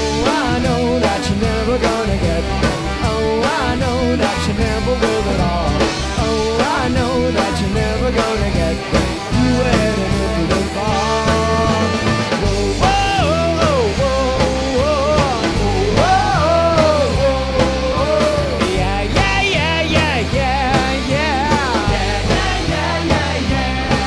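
A live rock band with a horn section playing a song: drums, electric guitars and bass under a trumpet and trombone melody, with a steady beat.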